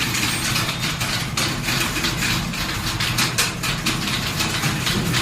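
Many keys being typed on at once: a dense, rapid, irregular clatter of key strikes over a steady low hum.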